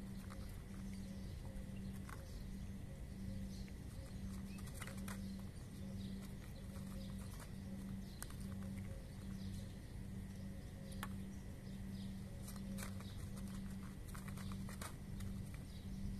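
Cats chewing dry kibble: irregular small crunches and clicks, over a low hum that pulses regularly.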